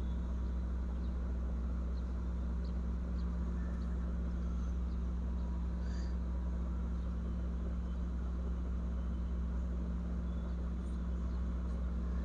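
Steady low hum of background room noise with a few faint, light ticks now and then.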